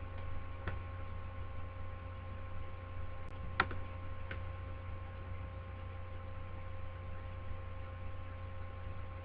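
Steady electrical hum, a low buzz with a few fixed higher tones, and a single sharp click about three and a half seconds in.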